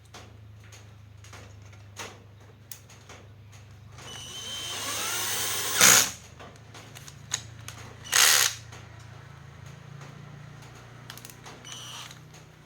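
Repair-bench handling sounds: scattered clicks and knocks over a low steady hum. A small power tool runs up for about two seconds in the middle and ends in a loud sharp knock, with another short loud burst a couple of seconds later.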